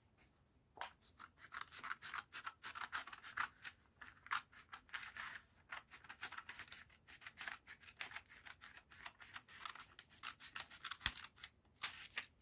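Black-handled scissors cutting through a large sheet of pattern paper along a curved line: a long run of quick, repeated snips that starts about a second in and stops just before the end.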